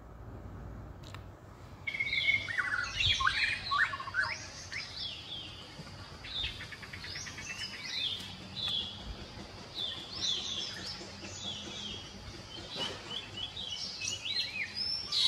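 Birds chirping and twittering: many short, quick calls, some gliding up or down in pitch, with a rapid trill among them, starting about two seconds in.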